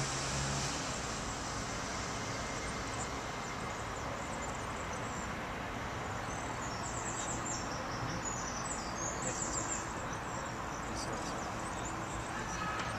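A low hum stops about a second in, leaving a steady even background noise; small birds chirp in quick high bursts through the middle of the stretch.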